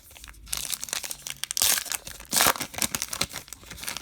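Crinkly wrapper of a Topps Gypsy Queen baseball card pack being torn open and crumpled, with irregular crackling and rustling, loudest in two bursts around the middle.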